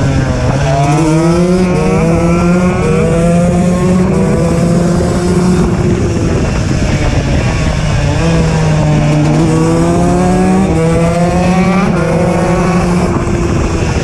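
KTM EXC 125's two-stroke single-cylinder engine with an HGS exhaust, ridden hard: the revs climb in rising sweeps and drop back at each gear change, building up twice.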